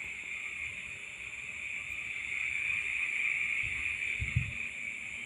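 Night insects such as crickets buzzing in a steady, even high-pitched drone, with a short low thump about four seconds in.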